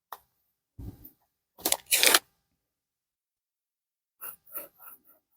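A few brief handling sounds during gluing a rubber patch onto a sandal sole: a click, a short scraping rustle about two seconds in, and a few soft knocks and rustles near the end.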